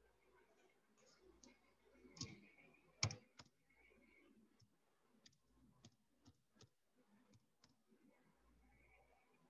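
Faint, scattered clicks of a computer keyboard and mouse as text is typed, with one louder click about three seconds in.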